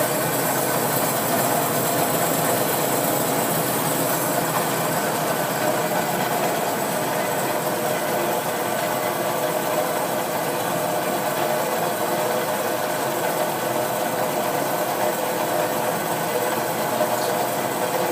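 Marvel Series 8 Mark II vertical bandsaw running steadily with its head under power feed into the workpiece, the blade cutting through the stock.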